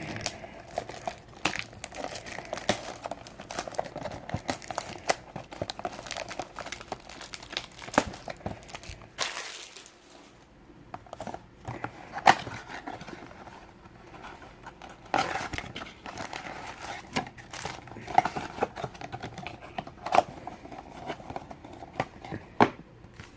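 Packaging of a trading-card blaster box crinkling and tearing as it is opened by hand, with a busy run of crackles and a few louder snaps.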